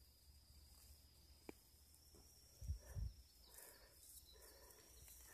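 Near silence: faint ambience with a steady high-pitched tone, a single sharp tick, and two soft low thumps a little past halfway.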